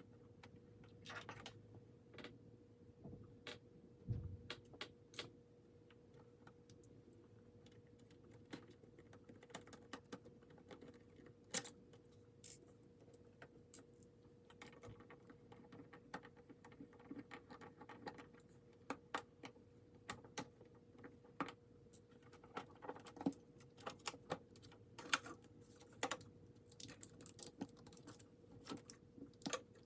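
Faint, irregular small clicks and taps of plastic laptop parts and tools being handled while a ThinkPad T41 is taken apart to remove its cracked screen, over a faint steady hum.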